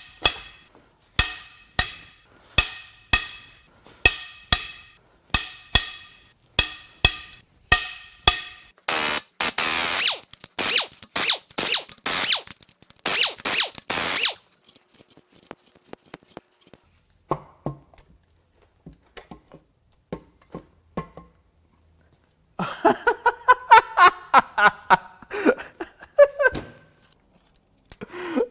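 Pneumatic impact wrench spinning out the cylinder-head bolts of a Honda J35 V6 in five short bursts, loosening them. It is preceded by a regular run of ringing metallic clicks, about one every 0.7 seconds, and followed by a spell of metal parts clattering.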